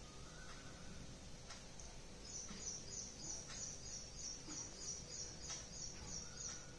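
Faint room tone with a bird's high chirp repeated at about three a second, starting about two seconds in and stopping shortly before the end.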